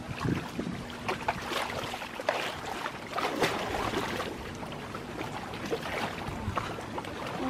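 Person wading into shallow river water, feet and legs splashing and sloshing in irregular bursts.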